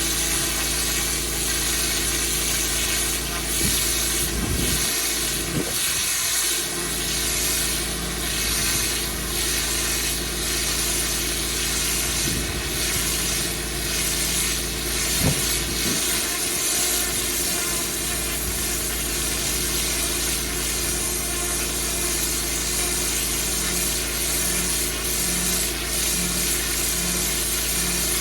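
Pressure washer running steadily: an engine under the continuous hiss of the high-pressure water spray.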